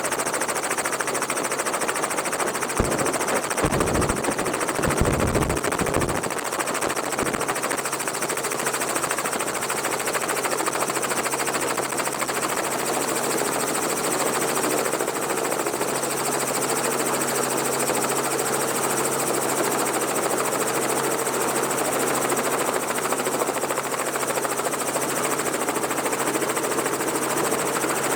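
Robinson R44 helicopter in flight with the doors off: steady rotor and piston-engine drone under a loud rushing hiss of air. Low gusts of wind buffet the microphone a few seconds in.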